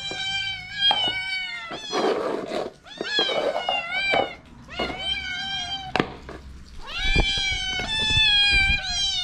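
Repeated domestic cat meows, about one call a second, with the last one drawn out for about two seconds. The owner's "be patient" just before marks them as insistent, demanding meows.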